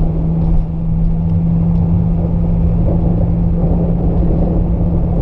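BMW 335i's N54 twin-turbo straight-six running at a steady engine speed with a constant drone, over a continuous low rumble from the tyres in the snow.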